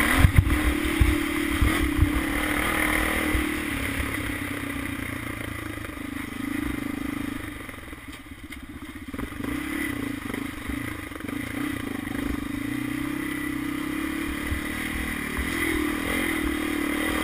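Honda 400EX quad's single-cylinder four-stroke engine running on a bumpy dirt trail, with rattling and thumps from the rough ground. The engine quietens briefly about eight seconds in, then picks up again.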